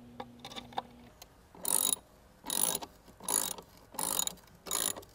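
Ratchet wrench tightening the bolts that hold the volute to the pump bracket, with five short bursts of ratchet clicking about one every three-quarters of a second. A few light clicks come first, in the first second.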